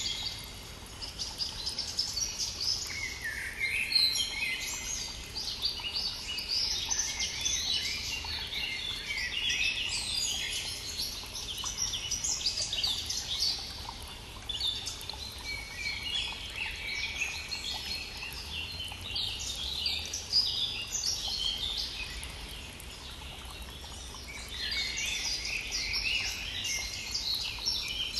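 Songbirds singing in spring: long phrases of rapid high notes, one after another with short pauses between, over the faint steady rush of a brook.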